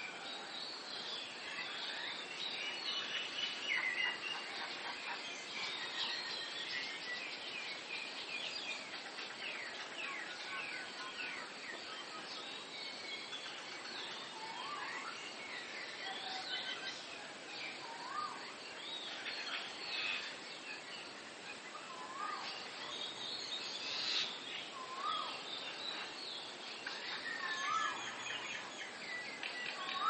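Several wild birds singing and chirping in the treetops, with many short high chirps. From about halfway through, one bird repeats a short, lower rising-and-falling call every two or three seconds, over a steady background hiss.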